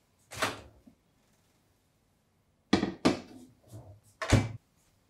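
A kitchen microwave's door being handled, heard as short knocks and thuds. There is one knock about half a second in, then a cluster of four near the end.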